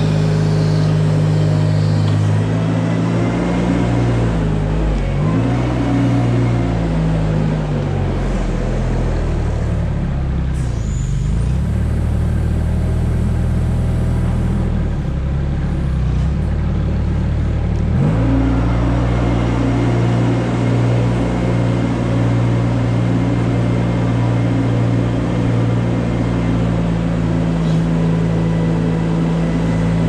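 Small farm loader's diesel engine running as it drives along a barn alley pushing manure with a scraper blade. The engine note dips and rises a few times in the first half, then holds steady.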